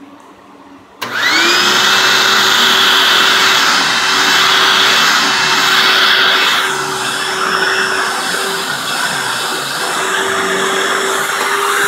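Hoover self-propelled vacuum cleaner switched on about a second in, its motor whine rising quickly as it spins up and then running steadily and loudly; its tone shifts a little about halfway through.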